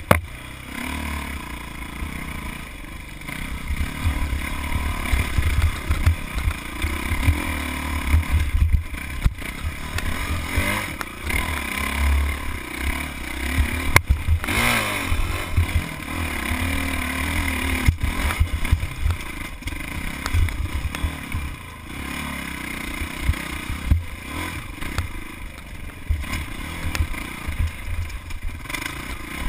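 Dirt bike engine running under varying throttle on a rocky single-track trail, with rocks clattering and scraping under the tyres. The revs rise sharply about halfway through.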